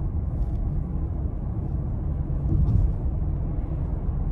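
Steady low rumble of road and engine noise inside the cabin of a Ford Edge ST with its 2.7-litre twin-turbo V6, cruising. It swells briefly a little over two and a half seconds in.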